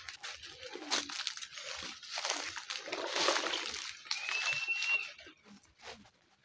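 Water sloshing and splashing in a plastic basin as plastic cups are scrubbed by hand with a homemade sponge. A brief high squeak sounds about four seconds in, and the washing noise dies down after about five seconds.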